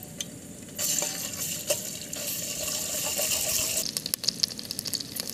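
Ginger-garlic paste frying in hot oil in a steel pot, the sizzle starting suddenly about a second in and running on. From about four seconds in, sharp pops and crackles from the spattering paste, with clinks of a steel ladle against the pot.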